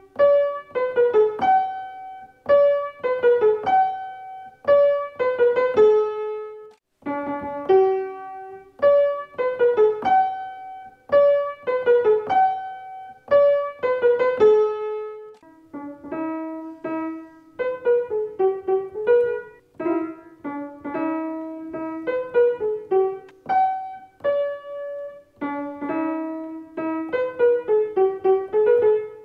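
Solo piano playing a melody in short phrases of quick notes, each ending on a held note, repeating about every two seconds.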